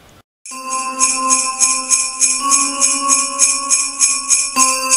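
Instrumental opening of a Christmas song: jingle bells shaken to a steady beat over held notes, starting about half a second in after a brief silence.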